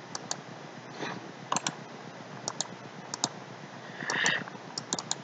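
Computer mouse buttons clicking, faint, in quick press-and-release pairs about six times, with a short soft rustle about four seconds in.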